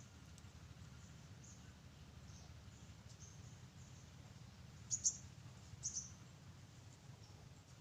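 Short high bird chirps scattered through a steady low background rumble, with two louder, sharper chirps about five and six seconds in.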